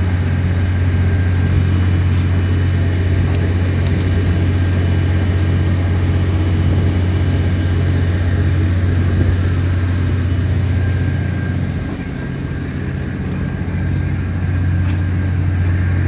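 Engine running steadily at constant speed, a loud low drone with a faint high steady whine over it; it eases slightly for a second or two past the middle.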